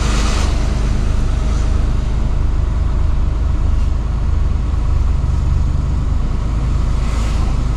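Mercedes-Benz Actros truck's diesel engine running, a steady low rumble with even road-and-cab noise over it.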